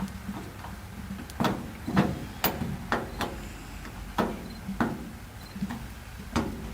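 Sharp clicks and knocks from exterior doorknob hardware as its mounting screws are tightened down, about one every half second at an uneven pace.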